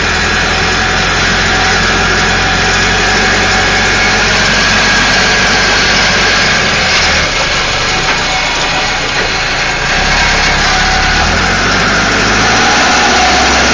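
Caterpillar 416C backhoe's Perkins turbo-diesel engine running as the machine works. Its low engine note drops about seven seconds in and comes back up about three seconds later.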